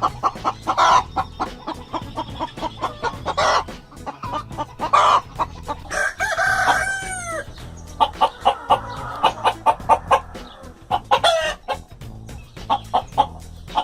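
Chickens clucking repeatedly, with a rooster crowing once about six seconds in.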